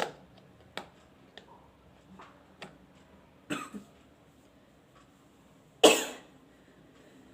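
A woman's small sniffs and nose clicks while she tries to provoke a sneeze, then one loud, sharp burst of breath about six seconds in, fading within half a second.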